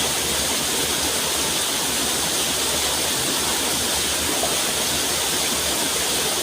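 Steady rushing water, an even hiss with no breaks or changes.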